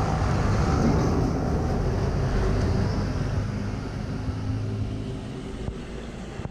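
Motorcycle engine running steadily with wind and road rush while riding, getting quieter through the second half.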